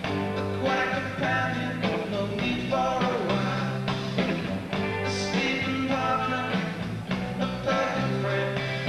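Rock band playing live: a singer's vocal over bass guitar and drums, with steady bass notes and a regular drum beat.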